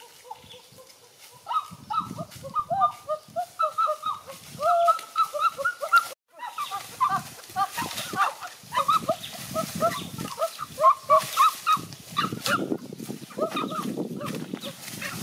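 Chicken clucking and calling in quick short notes, several a second, over rustling and handling noise, with a brief break about six seconds in.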